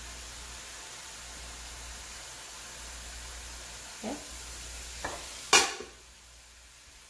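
Grated-cauliflower fried rice with shrimp sizzling softly in a hot pan on a switched-off burner while it is scooped out with a wooden spatula. There are a few light knocks, then one sharp clack about five and a half seconds in, the loudest sound, after which the sizzle fades.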